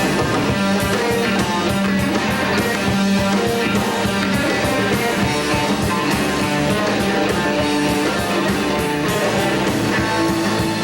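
Classic rock band playing an instrumental passage with electric guitar, bass and drums, with no singing.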